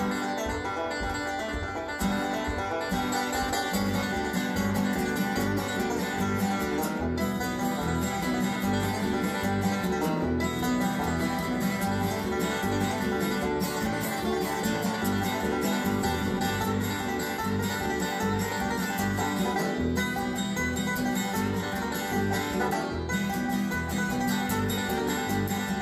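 Background music: an upbeat, bluegrass-style tune on plucked strings, with a steady beat.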